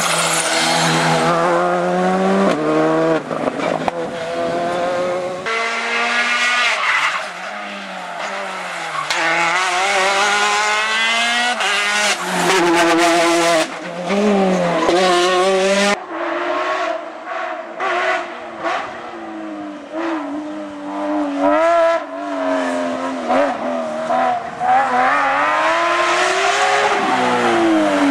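Rally car engines revving up and down through quick gear changes as the cars accelerate and brake past. The sound cuts abruptly from one car to another about five and a half seconds in and again about sixteen seconds in.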